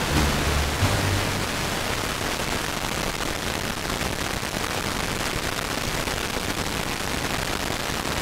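Steady hiss from an FM receiver tuned to 103.7 MHz, where a very weak, distant ABC Classic FM signal, brought in by an aurora opening, is mostly buried in noise. A few faint low music notes come through in the first second or so, and then only the noise is left.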